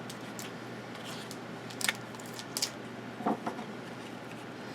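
A few short, soft clicks and rustles from handling football trading cards and their foil packs, over a low room hum.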